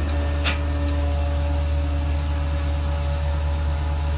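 Heavy diesel engine running steadily with a deep, even hum, as of the crane truck working its hydraulics to hold the wrecked truck. A brief swish about half a second in.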